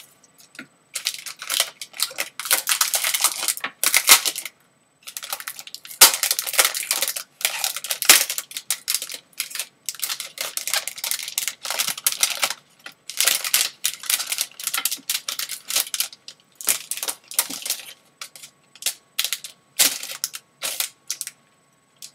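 Plastic wrapping crinkling and rustling in irregular bursts as it is pulled off a new keyboard, with a couple of sharp clicks.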